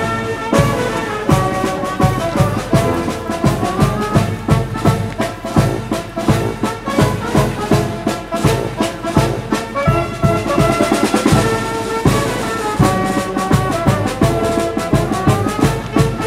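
Instrumental brass-led orchestral music with a steady percussion beat and no singing. It briefly drops away just before and starts again at once.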